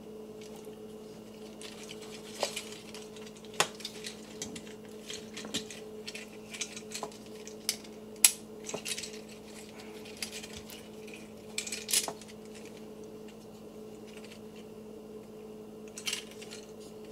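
Plastic parts of a Transformers action figure clicking and snapping as it is handled and moved through its transformation: scattered sharp clicks and light taps, with a faint steady hum underneath.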